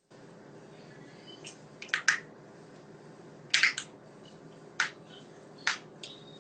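A handful of sharp clicks or taps, two of them in quick pairs, over a steady low hum.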